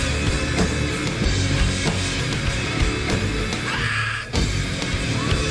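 Live heavy rock band playing an instrumental passage with guitars and drum kit, with a brief break in the sound about four seconds in.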